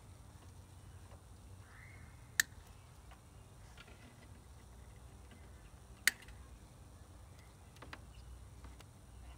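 Two sharp clicks about four seconds apart, then a few lighter ticks near the end, as the hardware and cables on the terminals of a 12-volt deep-cycle battery are handled.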